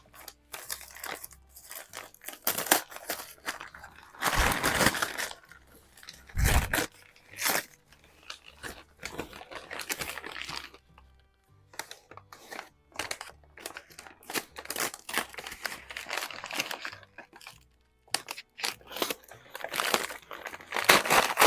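Packing material being torn and crinkled by hand, in irregular bursts of rustling and ripping with short pauses, as a wrapped rifle is unwrapped.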